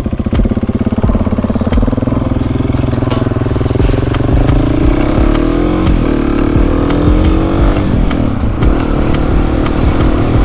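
Husqvarna 701 Supermoto's single-cylinder engine running as the motorcycle rides off. It climbs in pitch twice and drops back each time at a gear change, then holds steady near the end.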